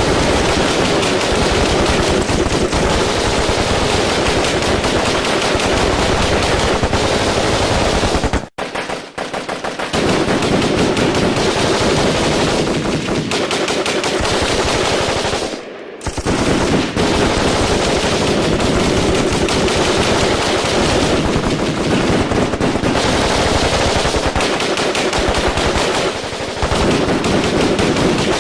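Sustained automatic gunfire in a firefight: long, continuous bursts of rapid shots, broken by a brief pause about a third of the way in and a short gap just past halfway.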